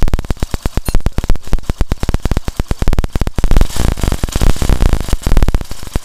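Hero Passion Pro motorcycle's single-cylinder four-stroke engine running, louder for a couple of seconds midway. A 10 mm bolt has been loosened, and the timing-chain-like rattle it was making is gone.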